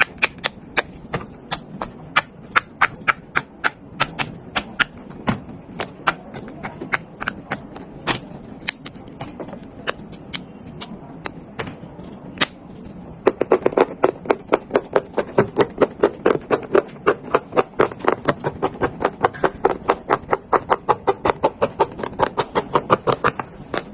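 Silicone pop-it fidget toy bubbles being pressed one after another, a steady run of sharp pops at about three a second that speeds up to about five a second and gets fuller about halfway through.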